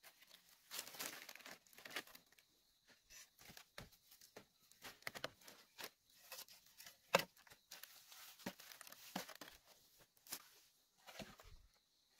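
Dry leaves being crumpled and torn by hand while dry bamboo sticks are handled to kindle a fire: irregular crackling and rustling, with a few sharper clicks.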